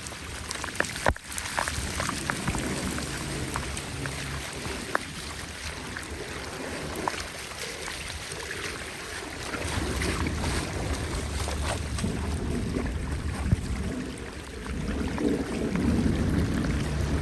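Running water with wind buffeting the microphone in gusts, stronger in the second half, and scattered sharp clicks and knocks.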